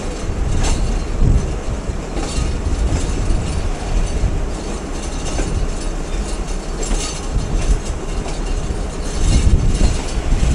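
Passenger train running, heard from on board: a steady rumble with wheels clacking on the track at uneven intervals.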